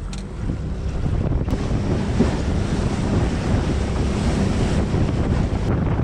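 Wind buffeting the microphone over the rush and slap of choppy water along the hull of a small aluminium boat under way. The noise is steady and heaviest in the low end.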